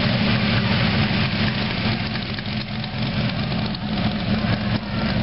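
Engine of a vintage-style hot rod pickup truck with side-mounted exhaust, running at low speed with a steady low rumble as it drives slowly past.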